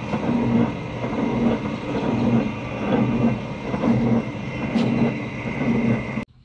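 Rebuilt D18 American pumping-unit gearbox running, driven by an electric motor through a belt, with a steady high whine and a lower gear growl that pulses a little more than once a second. The gear noise comes from the new gears not yet worn in to mate with the high-speed gear, not from the bearings. The sound cuts off suddenly near the end.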